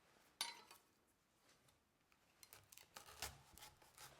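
Faint knife work on a pineapple on a chopping board: a sharp cut or knock about half a second in, then scattered small knocks and scrapes near the end.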